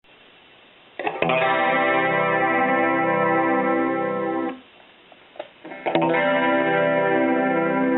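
Clean electric guitar chord strummed through a Roland Jazz Chorus combo amp, ringing for about three seconds, then struck again about two seconds later. The low notes waver slowly, like the amp's built-in chorus.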